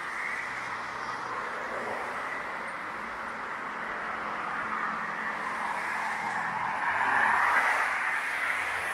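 Steady road traffic: the hiss of car tyres on the road, growing louder about seven seconds in as a vehicle passes close, then easing off.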